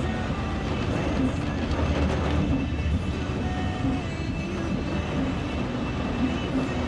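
Steady noise inside a moving car in heavy rain: a low rumble of tyres on the wet road with rain hitting the car.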